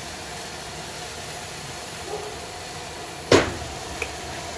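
Steady hiss of a gas wok burner and vegetables sizzling in the wok. About three seconds in the metal ladle strikes the wok once with a sharp clank, and a lighter tick follows just after.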